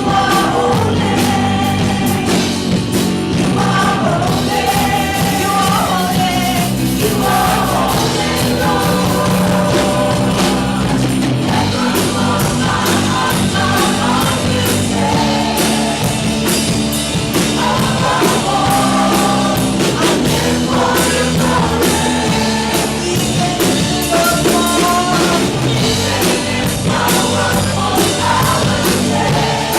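Live worship band with drums playing a contemporary praise song while voices sing the melody.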